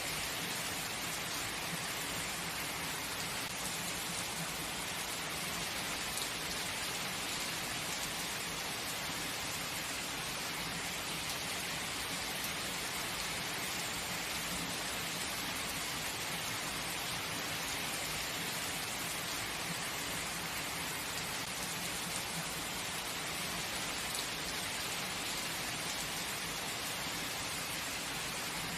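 Heavy rain falling steadily: an even, unbroken hiss with no distinct drops or thunder standing out.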